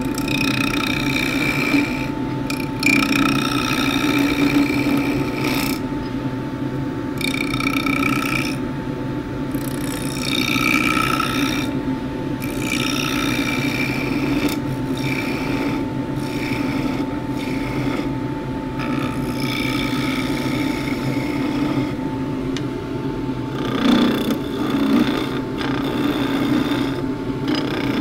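Wood lathe running with a steady hum while a skew chisel cuts a spinning juniper spindle. The cuts come in repeated passes of scraping shaving noise with short pauses between them.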